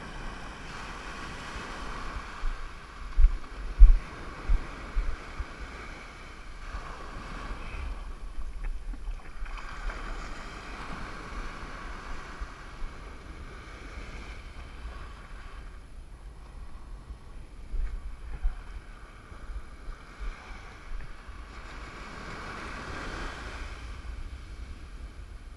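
Ocean surf breaking and washing up a sand beach, the wash swelling and fading every few seconds. Wind buffets the microphone in low thumps, loudest a few seconds in and again past the middle.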